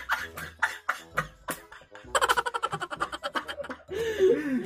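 Two women laughing hard together: quick runs of breathy laughter, ending in a voiced laugh that slides up and down in pitch.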